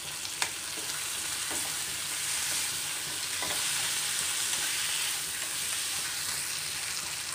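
Chicken sizzling in a stainless-steel kadai while being stirred with a steel spatula, with a steady hiss and a few sharp scrapes and knocks of the spatula against the pan.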